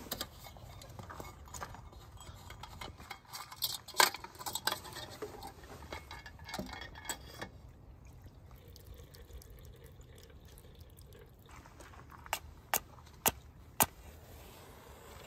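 Scattered clinks and knocks of small objects being handled, busiest in the first half, then four sharp separate clicks near the end.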